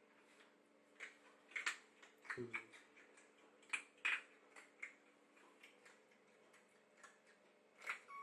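Light, irregular clicks and taps on a hard tiled floor, about a dozen spread over several seconds, with one short low thump about two and a half seconds in.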